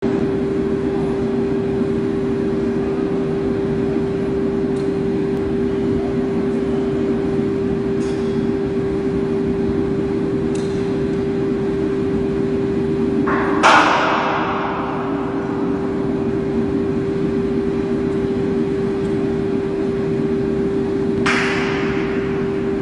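Steady machinery drone with a constant hum in a steel cargo hold, broken by a few metal clanks as workers climb onto a clamshell grab bucket; the loudest clank comes about halfway through, another near the end.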